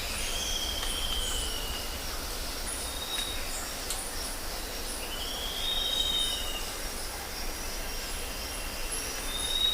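A bird giving long, drawn-out whistled notes, each arching up and then down in pitch, about four times, with steady high insect trilling behind.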